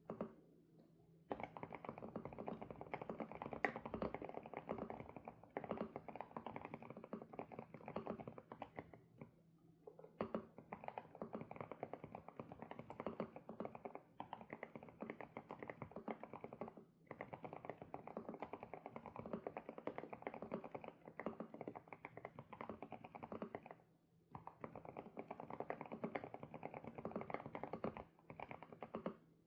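Fast typing on an SPM PL108W mechanical keyboard with Sunset switches: long runs of rapid keystrokes, broken by brief pauses every few seconds.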